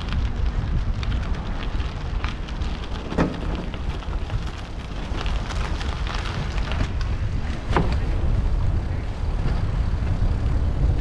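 Wind buffeting the microphone of a moving handheld camera, a steady low rumble, with scattered crackles and knocks throughout.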